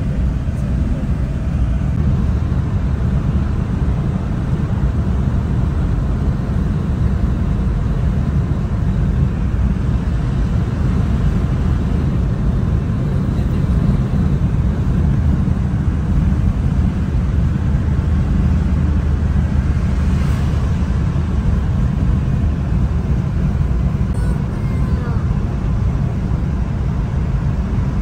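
Steady low rumble of a car driving through a road tunnel, heard from inside the cabin: tyre and engine noise at cruising speed.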